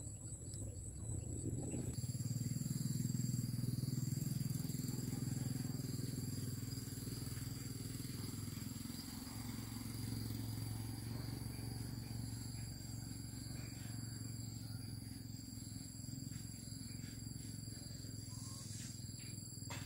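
Insects chirring in thin, steady high tones that change about two seconds in, over a louder low steady rumble.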